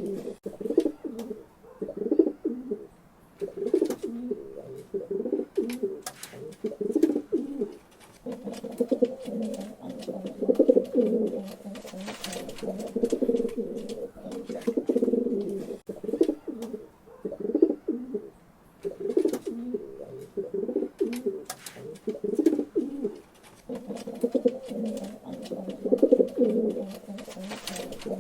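Pigeons cooing in repeated low, warbling bouts of a second or two, with brief pauses between them and scattered sharp clicks.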